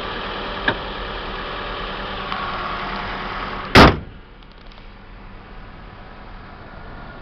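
Toyota RAV4's 3S four-cylinder engine idling steadily under the open bonnet, then the bonnet slammed shut a little under four seconds in with one loud bang; after it the idle goes on much more faintly behind the closed bonnet.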